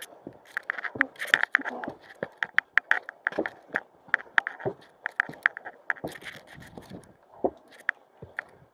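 Footsteps climbing a steep rocky mountain trail: irregular sharp clicks and scrapes of boots and hard tips on rock, several a second.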